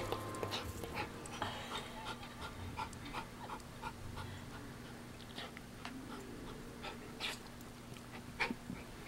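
Poodle panting and sniffing at a window, with scattered faint ticks and clicks.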